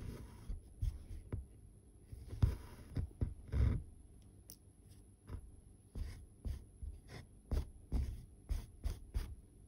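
Embroidery needle punching through 25-count Zweigart fabric in a run of soft taps and pops, about one or two a second, with a longer rustle of thread drawn through a little past two seconds in.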